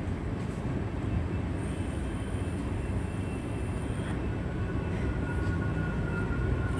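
A steady low rumbling hum, with faint steady high-pitched tones over it and no distinct knocks or strokes.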